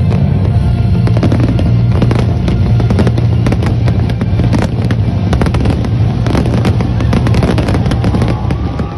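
Fireworks display: shells bursting in quick succession, many sharp bangs and crackles.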